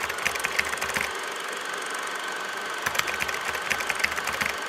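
Movie film projector sound effect: a mechanical clatter of rapid clicks over a steady thin whine, with the clicking heaviest in two spells.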